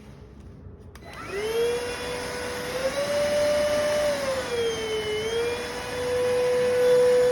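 iwoly C150 cordless stick vacuum switched on about a second in, its motor spinning up to a steady high whine. The pitch rises a little, dips briefly in the middle and settles again.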